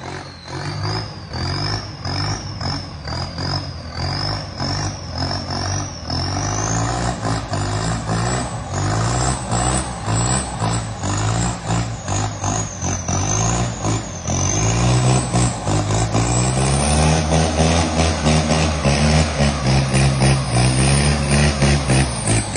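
Vehicle engine running and revving, its pitch repeatedly rising and falling over a steady pulsing, with a high whine that wavers up and down through the first half. It grows louder in the last third.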